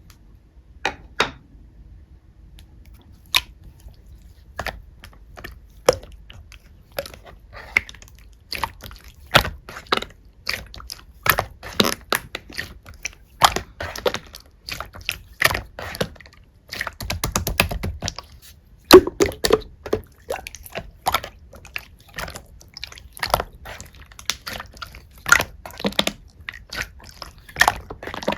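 Black slime being squished and poked by hand, giving many irregular sticky clicks and pops, with a longer, duller squish about seventeen seconds in.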